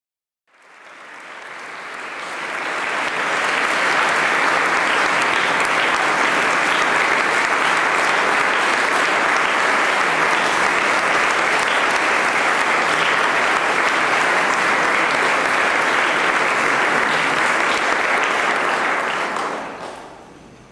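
Concert audience applauding. It builds up over the first few seconds, holds steady, then dies away near the end.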